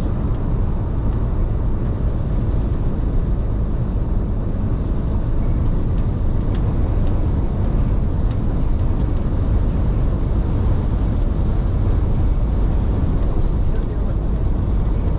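Steady low rumble of a large truck driving at highway speed, heard from inside the cab, with a few faint clicks.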